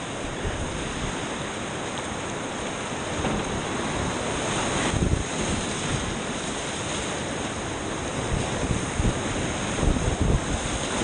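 Whitewater rapids rushing, heard from within the rapid as the kayak runs it: a steady dense roar of churning water, surging louder with low splashing about five seconds in and again near the end.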